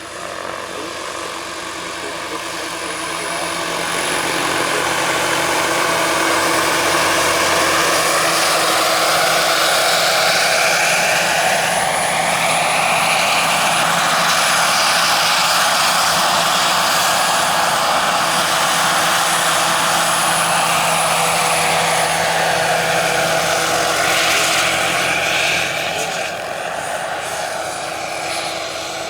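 A 1/4-scale AS350 Ecureuil RC model helicopter flying past, its Jakadofsky gas turbine whining under the rotor noise. It grows louder over the first few seconds, stays loud through the middle, and drops back near the end.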